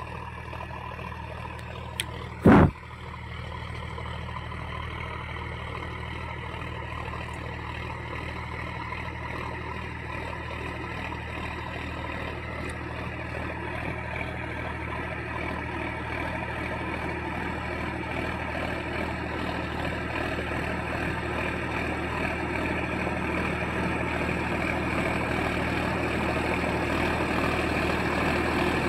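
Sonalika DI 35 tractor's diesel engine running steadily under load as it pulls a rotavator through the soil, growing gradually louder as it comes closer. A single brief sharp knock about two and a half seconds in.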